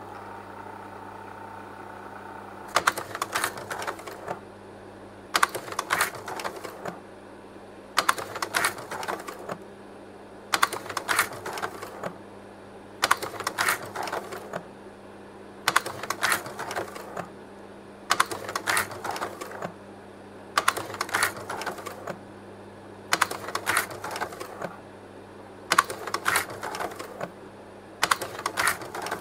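Leica Pradovit P150 slide projector running with its cooling fan humming steadily, then from about three seconds in advancing slides over and over: a clattering burst of clicks from the slide-change mechanism roughly every two and a half seconds.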